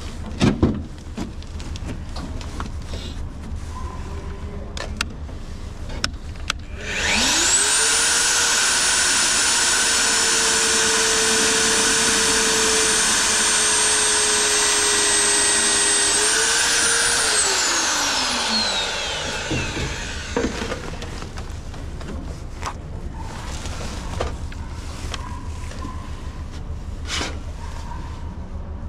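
A handheld power tool's electric motor starts about a quarter of the way in and runs at a steady high whine for about ten seconds. It then winds down, its pitch falling over a couple of seconds. Sharp handling knocks come before it and scattered knocks after it.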